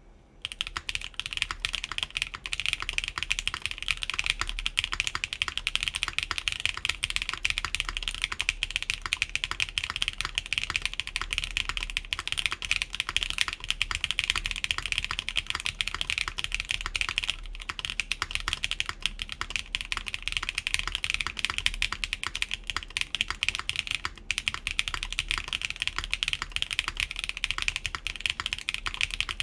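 Steady fast typing on a mechanical keyboard, the Atelier Magnus Slate Zero with lubed Keygeek Blue Cheese v2 switches and DSA keycaps on a full aluminum plate, gasket-mounted and with no foam inside the case. The keystrokes start about half a second in and run on densely with a couple of very short pauses.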